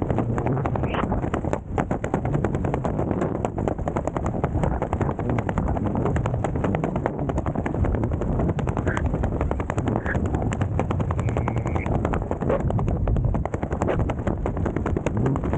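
Airflow under an open parachute canopy: wind rushing over the microphone with a fast, steady rattling flutter of fabric flapping in the wind.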